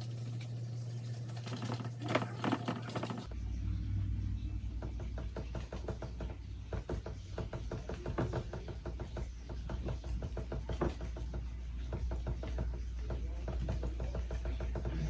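A paint brush dabbing and tapping against a canvas while clouds are being painted: a quick, irregular run of soft knocks over a low hum.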